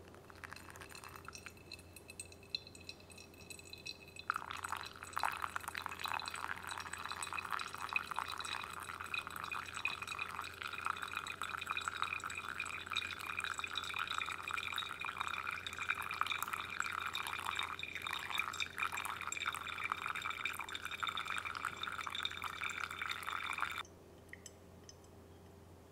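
Hot water poured in a thin stream from a gooseneck kettle onto coffee grounds in a pour-over dripper, a steady trickling splash. It grows louder about four seconds in and stops suddenly about two seconds before the end.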